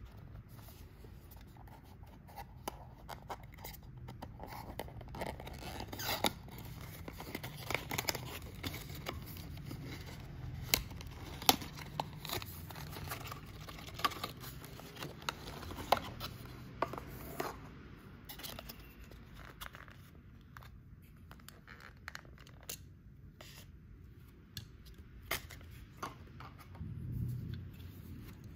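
Small cardboard box of a die-cast model car being opened and unpacked by hand: card sliding and scraping, with many sharp clicks and rustles. The handling is busiest in the middle and thins out near the end.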